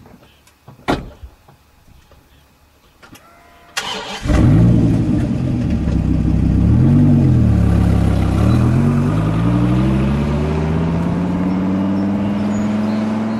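Dodge Viper V10 engine starting about four seconds in, after a few faint clicks. It revs up and back down once, then pulls away with its pitch climbing steadily as it accelerates.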